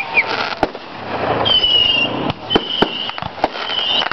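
Consumer aerial fireworks in a finale: repeated sharp bangs of bursting shells over a continuous crackling hiss. Several high whistles rise over the bangs from about a second and a half in.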